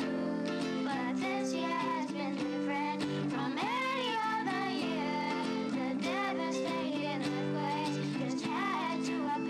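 Children singing a song with acoustic guitar accompaniment.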